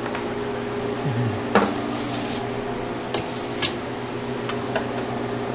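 Metal freeze-dryer trays of dried macaroni knocking and clinking a few times as they are handled and lifted off a kitchen scale, over a steady machine hum.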